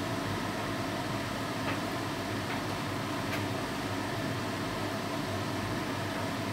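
Steady fan-like hum and hiss, with a few faint ticks.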